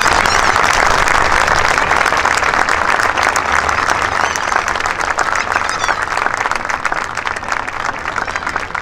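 Crowd applauding, loud at first and slowly dying down.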